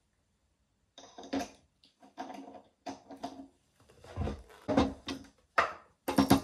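Irregular handling noises, starting about a second in: a glass dropper bottle being capped, a cloth rubbed over a leather shoe, and the shoe picked up off a wooden desk, with a few dull knocks about four to five seconds in.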